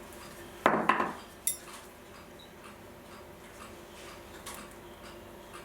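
Small metal clock parts and tools handled at the workbench: a short clatter about a second in, then a sharp metallic click with a brief ring, followed by a few faint ticks.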